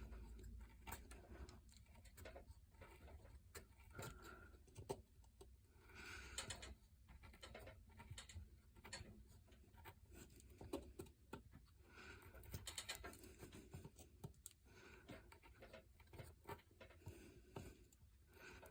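Faint, irregular scraping and clicking of a Swiss Army knife blade paring small cuts into basswood, one short stroke after another.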